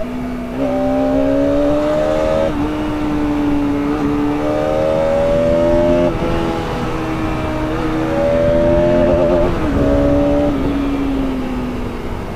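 Bajaj Pulsar RS200 single-cylinder engine and exhaust under acceleration, its pitch climbing and then dropping sharply at each of several gear changes, then falling away near the end as it slows.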